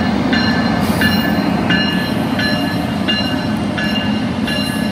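NJ Transit ALP-46 electric locomotive's bell ringing steadily, about one and a half strikes a second, over the low rumble of the train moving along the platform.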